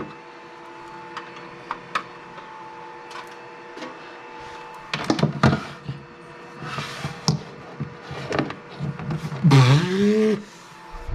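Scattered clicks and knocks of equipment and cables being handled, with a cluster of louder knocks about five seconds in, over a faint steady electrical hum. Near the end there is a short voiced sound that bends in pitch.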